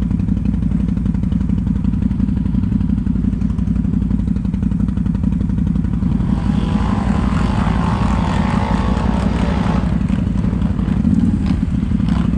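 ATV engine running steadily, heard up close. From about halfway through, for some four seconds, a rougher, noisier sound rises over it.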